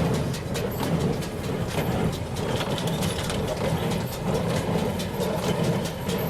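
New Holland BC5060 square baler working behind a John Deere 5410 tractor: the tractor engine runs steadily under a fast, even mechanical clatter from the baler.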